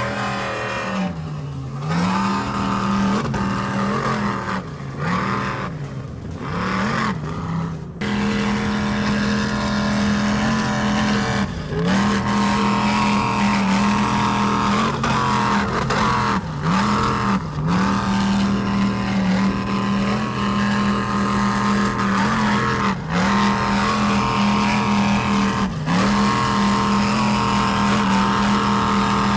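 Offshore race boat engines running at high speed: one steady engine note that dips down in pitch and recovers, again and again, broken by several sudden short gaps.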